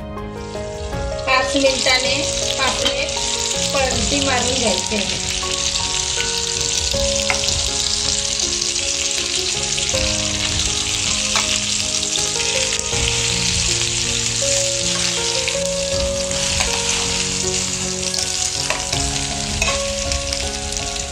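Semolina-crusted pomfret fish shallow-frying in hot oil in a non-stick pan, sizzling steadily, with a few light clicks of a steel spoon against the pan. Soft instrumental music plays underneath.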